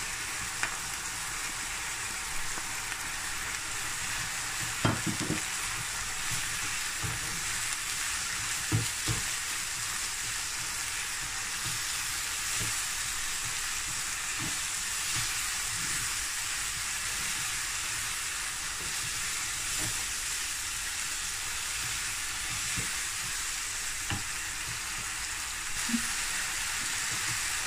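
Minced meat frying in oil in a non-stick pan, a steady sizzle now that its cooking water has dried off, while a wooden spatula stirs in the ground spices, knocking and scraping against the pan now and then.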